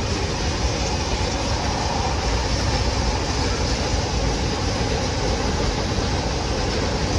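Freight train hauled by a PKP Cargo ST48 diesel locomotive passing the crossing, a steady rolling rumble of wheels on rail.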